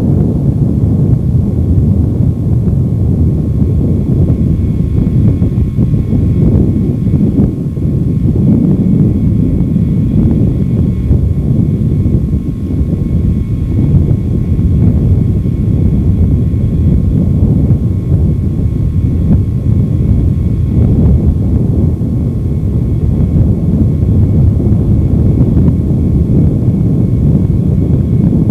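Loud, steady low rumble of wind and road noise from a moving vehicle, fluttering constantly.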